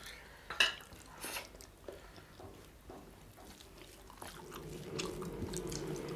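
Close-up eating sounds of rice and mutton eaten by hand: scattered wet mouth smacks and chewing, with fingers mixing food on steel plates. A steady low hum comes in about four seconds in.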